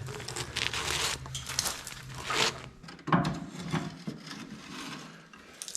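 Irregular scraping and rubbing strokes of dirt and crud being cleaned off a Jeep TJ steel frame, busiest in the first three seconds, then fewer, quieter scrapes.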